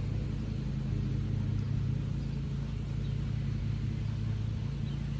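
Steady low hum of an engine or motor running, unchanged throughout.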